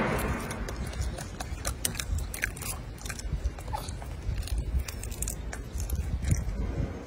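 Golden snub-nosed monkey biting and chewing a boiled egg: irregular small clicks and crunches over a low rumble.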